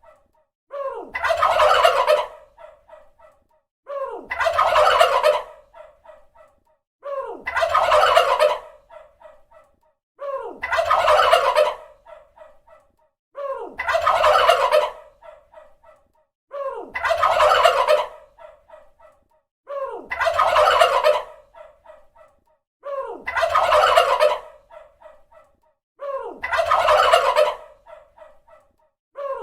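Turkey gobbling, the same call repeated about every three seconds, about ten times. Each gobble lasts about two seconds: a loud rapid rattle that trails off into a few quieter warbles, then a short pause.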